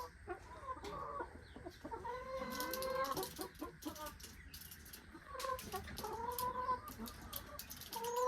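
Chickens clucking, with a rooster crowing in long drawn-out calls a few times.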